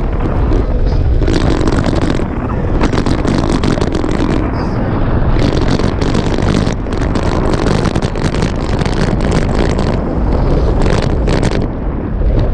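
Wind buffeting the microphone in short, irregular gusts over a steady low rumble from a moving vehicle.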